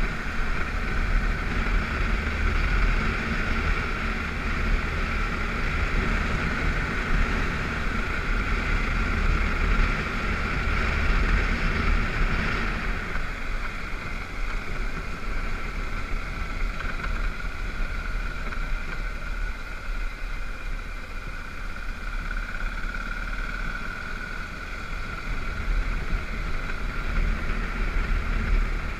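BMW F650GS motorcycle running under way on a dirt road, its engine mixed with wind and tyre rumble on the gravel. The engine note drops back a little about twelve seconds in.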